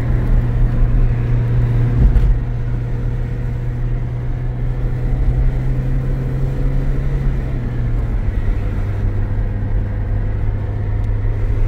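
A motor vehicle's steady low engine and road drone, dropping slightly in pitch about eight seconds in, with a single knock about two seconds in.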